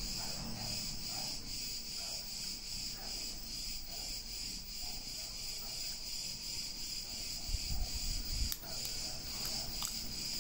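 A steady, high, finely pulsing chirring of insects in the background. A few low handling thumps come around three-quarters of the way in, and small clicks come near the end.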